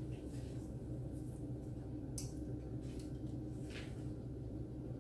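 Hands working pastry sheets in a round aluminium baking tray: brief rustles or scrapes about two seconds in and again near four seconds, over a steady low hum.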